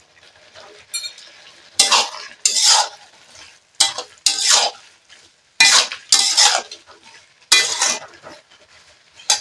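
Metal spatula scraping and stirring around a metal kadai as salt is mixed into a thick vegetable and amaranth-leaf curry. About seven short scraping strokes, mostly in pairs, starting about two seconds in.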